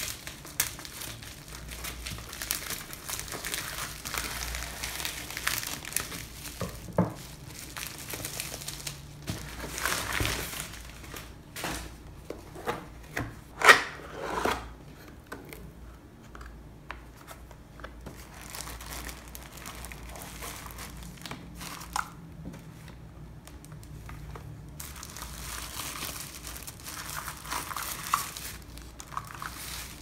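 Plastic packaging crinkling and rustling as a parcel is unwrapped and a cardboard box is opened, with scattered taps from handling and one sharp, loud snap about halfway through.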